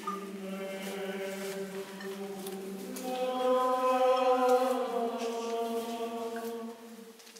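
Orthodox church chant: voices singing slow, long-held notes over a steady low held note, swelling louder a few seconds in and fading near the end.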